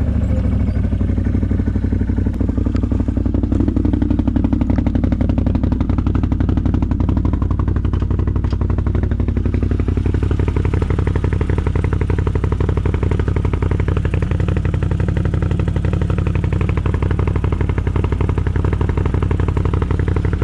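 CFMoto 1000 ATV's V-twin engine running steadily at an even pitch.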